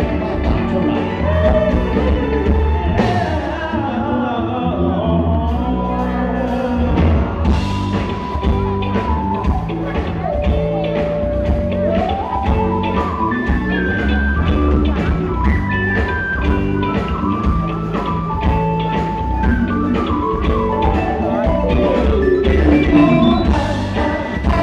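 A live band playing an upbeat song, with bass, electric guitar and a steady drum beat under a lead melody of long held notes that step up and down.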